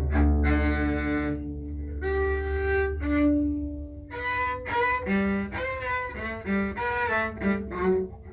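Double bass bowed: a few long held notes, then a quicker run of short notes from about four seconds in.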